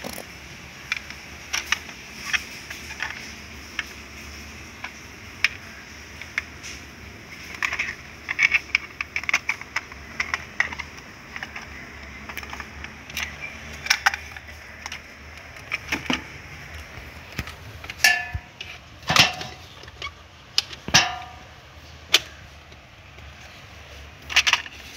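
Plastic clicks and knocks from a toy car being handled on a tiled floor, scattered irregularly, with a few louder knocks that ring briefly near the end.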